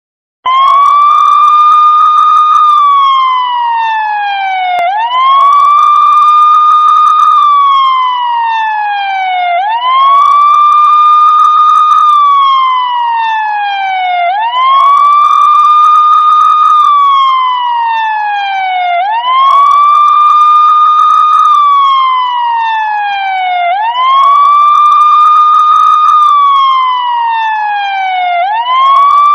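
Police siren ringtone sounding a loud wail: the pitch rises quickly, holds for about two seconds, then slides slowly down, over and over about every four and a half seconds.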